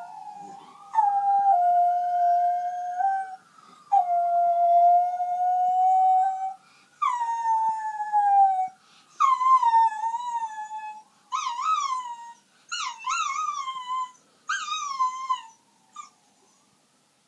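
Miniature schnauzer howling at an ambulance siren. It gives three long held howls, then several shorter wavering howls that rise and fall. A faint siren glides in the background during the first few seconds.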